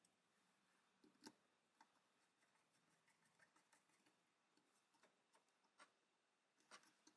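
Near silence broken by faint, scattered clicks and taps from a small screwdriver and wires being worked into an electric drill's trigger switch.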